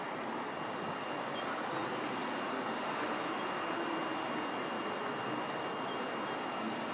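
A large flock of starlings in flight: a steady rushing hiss with faint high calls scattered through it.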